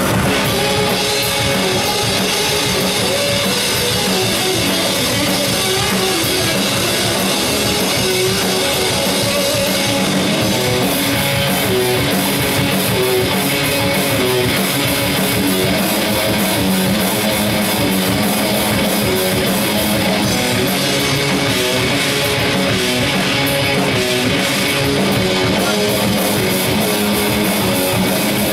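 Rock band playing live: electric guitars riffing over a drum kit in an instrumental passage without singing, steady and loud throughout.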